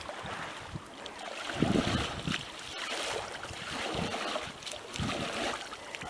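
Wind buffeting the microphone, coming in gusts that swell and fade.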